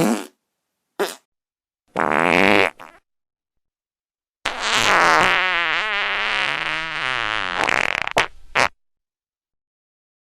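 A series of fart sound effects with short silences between them: a brief one at the start, another about a second in, one of under a second near two seconds in, then a long fart of about three and a half seconds with a wobbling pitch, ending in two quick short ones.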